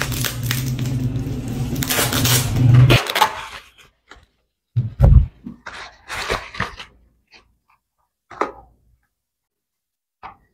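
Bubble wrap and plastic packing torn and crinkled by hand over a steady low hum for about three seconds. Then come scattered short rustles of a plastic bag, with a dull thump about five seconds in.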